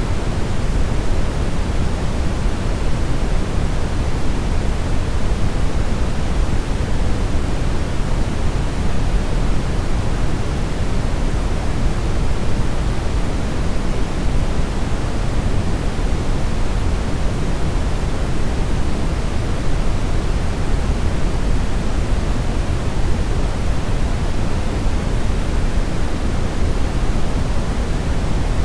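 Steady brown noise: an even, deep rushing hiss, heaviest in the bass and falling away toward the treble, unchanging throughout.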